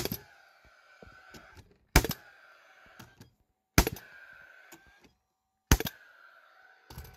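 Hammer blows driving nails into the wooden floor boards of a lean-to shelter: five sharp strikes about two seconds apart, each ringing briefly.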